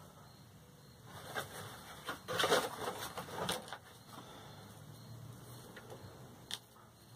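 Hands working bonsai wire among boxwood branches: a stretch of rustling with small sharp clicks about one to three and a half seconds in, loudest around two and a half seconds, and one more click near the end.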